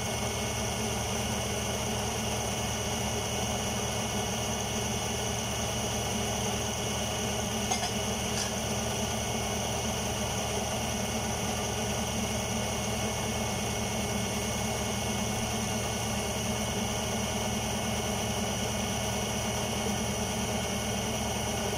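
Electric food processor motor running steadily, blending a thick banana bread batter of mashed bananas, melted butter and flour.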